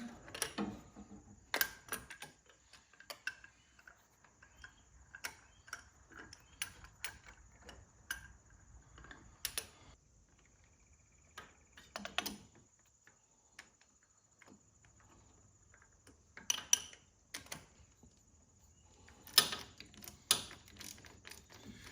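Irregular metallic clicks and clinks of hand tools and bolts while the starter's mounting bolts are run in with a 9/16 wrench. The ticking is scattered, with louder bursts of clatter about halfway through and near the end.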